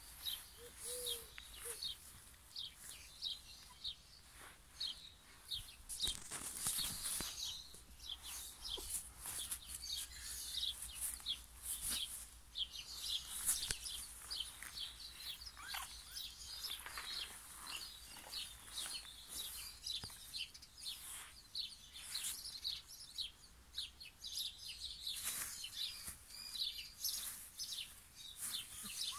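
Small birds chirping continuously, many short high chirps overlapping, with a few brief rustles.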